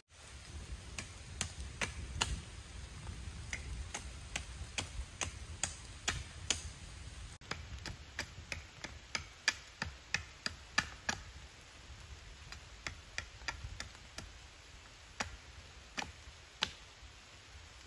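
A knife cutting into a wooden stake: sharp, irregular clicks and chops, roughly one or two a second.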